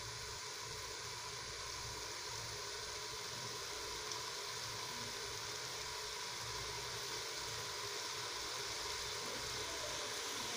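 Steady sizzling hiss of grains frying in oil in an aluminium pressure cooker on a gas burner.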